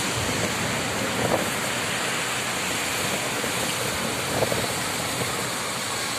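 Heavy rain pouring steadily onto standing water on a flat concrete rooftop: a dense, even hiss of countless drops splashing.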